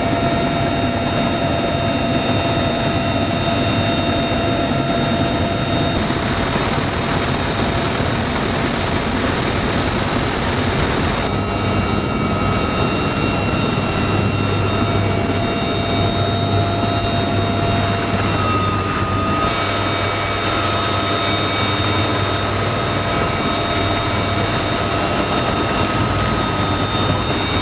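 Steady cabin noise of a CH-53K King Stallion heavy-lift helicopter in flight: rotor and turbine rumble with a high gearbox whine held on a few steady pitches. The mix of tones changes abruptly a few times.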